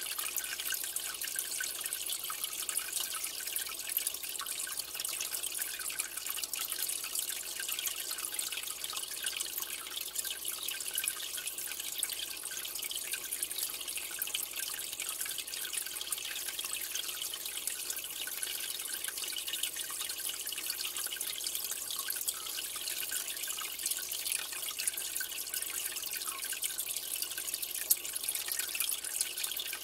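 Aquarium water trickling and dripping steadily, a fine constant splashing with many small drips, and one sharper drip near the end.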